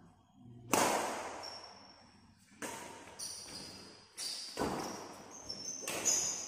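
Badminton rally: sharp, echoing racquet strikes on the shuttlecock about every one and a half to two seconds, the loudest about a second in, with short high squeaks of shoes on the court between them.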